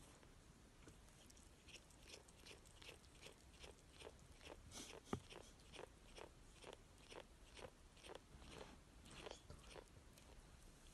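A cat chewing in close-up, with faint, regular crunching strokes about two and a half a second that start about a second and a half in and stop near the end, and one sharp click about halfway through.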